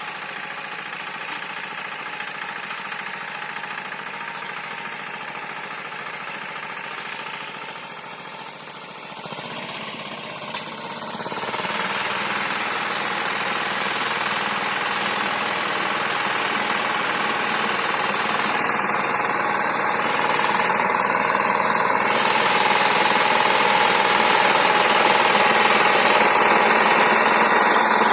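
Walk-behind tractor's engine running steadily. About ten seconds in it dips briefly, then grows louder and stays loud.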